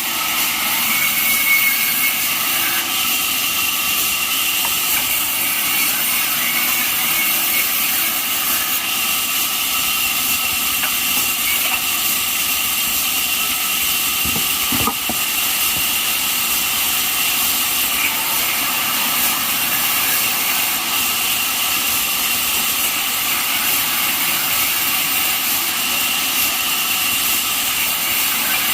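Band sawmill running, with a steady high-pitched whine over a continuous hiss. There is a brief knock about halfway through.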